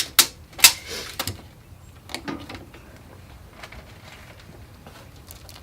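Handling noises while a length of glass-fibre spot-repair material is measured off and cut: two sharp rasps in the first second, a few smaller ones after, then faint rustling.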